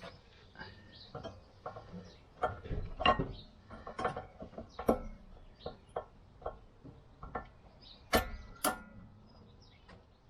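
Irregular metallic clicks and knocks of rear brake pads and hand tools being handled and seated in the caliper carrier, with two sharper clanks about half a second apart near the end.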